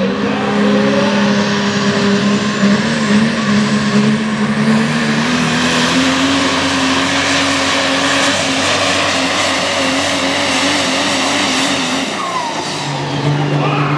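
Super modified 4x4 pulling truck's diesel engine at full throttle under load, dragging the pulling sled, its note climbing slowly and then holding. About twelve seconds in the engine note drops to a lower, steady pitch as the throttle comes off at the end of the pull.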